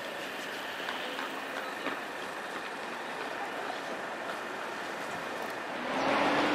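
Steady street noise at a light-rail tram stop, with a tram standing at the platform and a few faint clicks. About six seconds in, it jumps to louder traffic noise with a low engine tone that rises and then holds.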